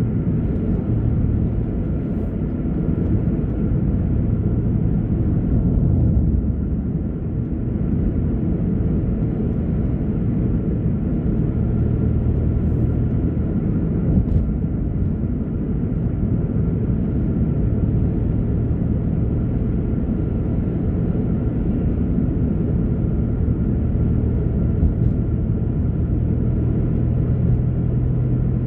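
Car engine and tyre noise heard from inside the cabin while driving at a steady speed: a constant low rumble with a steady engine hum.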